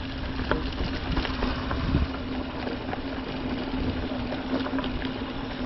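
Mountain bike rolling along a dirt trail: rumble of tyres and wind on the mic, scattered clicks and rattles from the bike, and a steady low buzzing tone.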